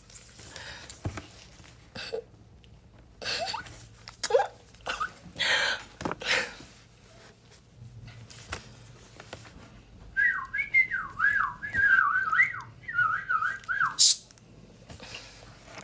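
A person whistling a short wavering, warbling phrase for about four seconds, starting about two-thirds of the way in, after several scattered short noises.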